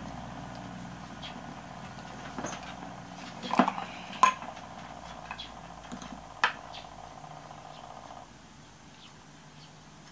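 Screw lid being twisted off a glass jar: a few sharp clicks and knocks as the lid turns and comes free, the loudest two about four seconds in and about six and a half seconds in. A faint steady hum underneath cuts out about eight seconds in.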